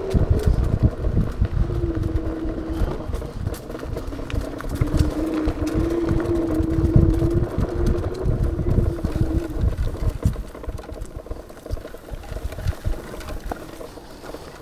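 500 W, 48 V electric scooter motor whining at a steady pitch in stretches under power, over a low rumble and knocks from riding a bumpy dirt track. It all gets quieter after about ten seconds as the scooter eases off.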